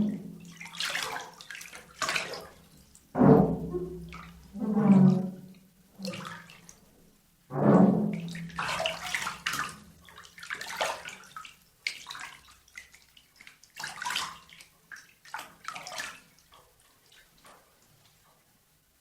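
Water splashing in a bathtub: irregular splashes and sloshes, several strong ones in the first eight seconds, then smaller ones that die away toward the end.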